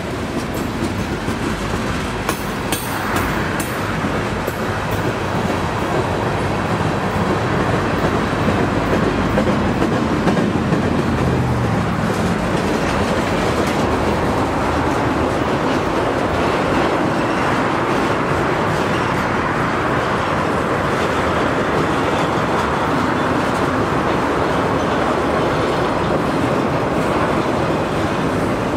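Norfolk Southern freight train's cars rolling past close by: a steady rumble of steel wheels on the rails, with a few sharp clicks in the first few seconds.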